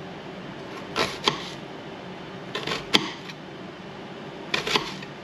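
Fillet knife slicing through an onion and knocking on a plastic cutting board: three short clusters of sharp clicks, a couple of seconds apart.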